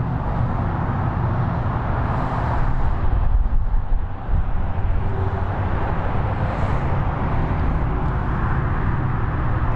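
Steady outdoor background rumble with a hiss above it, with no distinct events.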